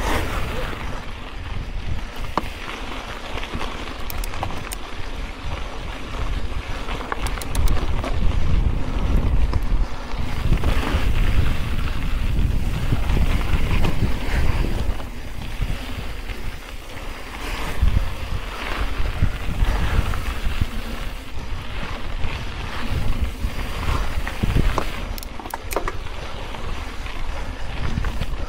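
Mountain bike descending dry, loose dirt singletrack: wind buffeting the camera microphone over the rumble and crunch of the tyres on the trail, with a few short rattles and clicks from the bike.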